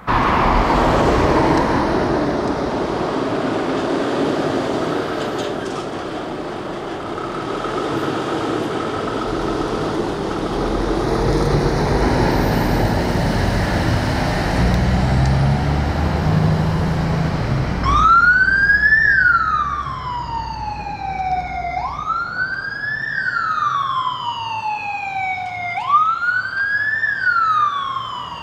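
Scania fire engine's diesel engine running loudly as it pulls out, then, about two-thirds of the way in, its siren starts: a tone that rises quickly and falls slowly, repeating about every four seconds, three times.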